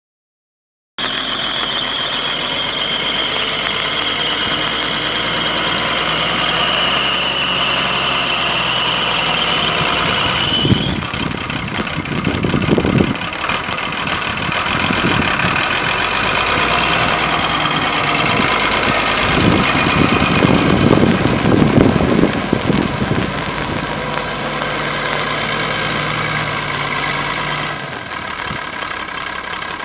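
Ford TW20 tractor's 6.6 L six-cylinder turbo diesel engine running as the tractor drives. For its first ten seconds a steady high whine sits over the engine note and then cuts off; after that the engine note surges louder twice, then settles steady again.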